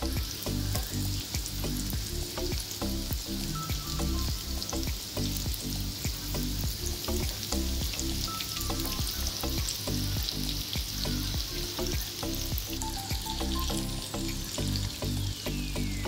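Hot oil sizzling and crackling steadily around a panful of oat-crusted chicken cheese balls deep-frying towards golden brown. Background music with shifting low notes runs underneath, and a long falling tone sweeps down near the end.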